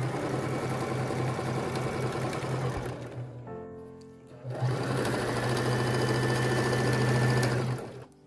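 Electric domestic sewing machine stitching a seam, running steadily in two stretches with a short stop a little over three seconds in, and stopping shortly before the end. Soft background music underneath.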